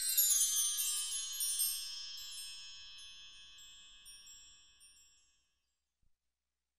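A cluster of high chime tones ringing and slowly fading, dying out about five seconds in.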